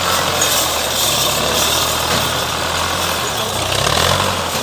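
Belarus 510 tractor's diesel engine running steadily.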